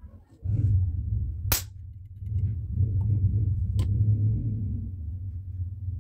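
Two sharp cracks of a homemade capacitor spot welder discharging through its copper-wire electrodes onto steel pliers, about a second and a half in and again near four seconds, over a steady low hum.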